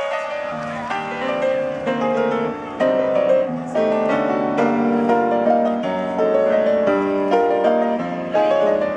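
Piano playing a continuous flowing passage of struck notes and chords.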